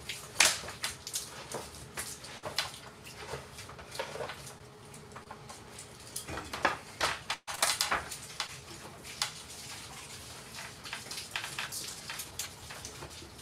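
Scattered knocks, clacks and rustling, with no steady rhythm, as people move about and handle things among loose wooden boards.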